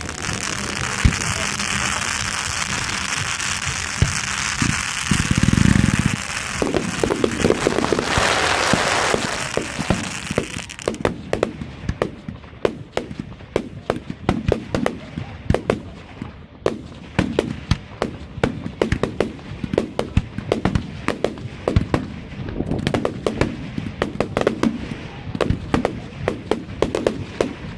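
Professional firework display: a loud hissing rush for about the first ten seconds, with a deep bang about five seconds in, then rapid sharp cracks and bangs, several a second, through the rest.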